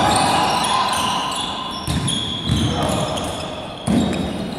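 Basketball game on a wooden sports-hall court: the ball bouncing, sneakers squeaking on the floor and players' voices calling out, echoing in the hall. A louder thud comes near the end.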